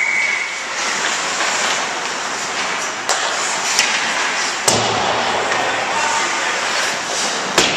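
Ice hockey play: a steady hiss of skates on the ice with crowd voices, and sharp cracks of sticks, puck and players hitting the boards about three, four and five seconds in and near the end, the one near five seconds the loudest, with a heavy thud. A referee's whistle cuts off just after the start.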